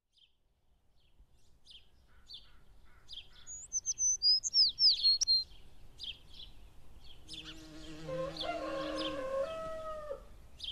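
Songbirds chirping, fading in from quiet, with a few gliding whistled notes about four seconds in. From about seven seconds a rooster crows, a long call that drops in pitch at its end.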